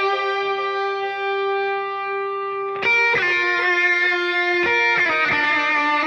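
Instrumental outro of a pop song: sustained, effects-laden electric guitar chords with no vocals, the chord changing about three seconds in and again near five seconds.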